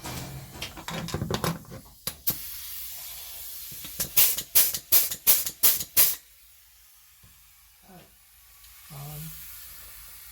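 Pneumatic air-operated joggler and hole-punch tool being test-fired on compressed air after repair: a click and a hiss of air, then a quick run of about seven sharp air blasts in two seconds as the trigger is worked.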